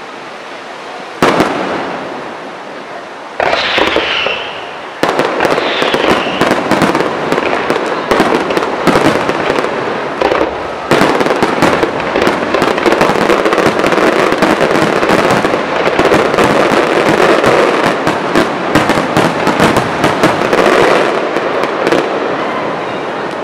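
Aerial firework shells bursting: single booms about a second in and again about three seconds in, then from about five seconds a dense, continuous barrage of bursts and crackling stars that eases off near the end. A brief falling whistle sounds around four seconds in.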